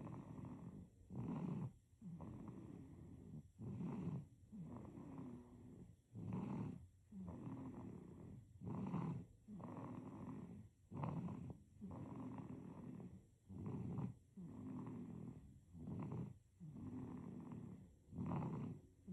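Baby snoring in sleep. Each breath brings a short, louder snore and a longer, softer rasp, repeating evenly about every two and a half seconds.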